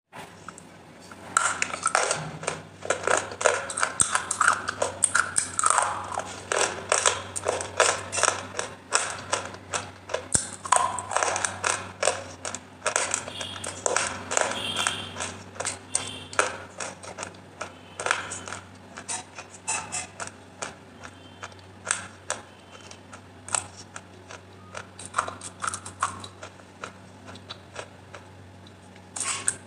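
Wet clay paste made from soaked clay-pot pieces, squished by fingers and eaten close to the microphone: a dense run of sticky clicks and squelches that thins out in the second half and pauses briefly near the end.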